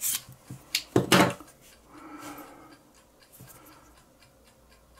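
Small metal clicks and clinks from handling a butane lighter as its insert slides out of the metal case: a few sharp clicks in the first second and a half, then faint light ticking.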